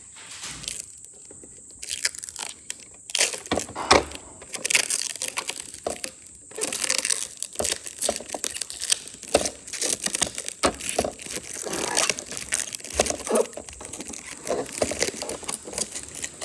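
Plastic packaging crinkling and crackling as it is handled and pulled off by hand, in irregular bursts with a few louder knocks.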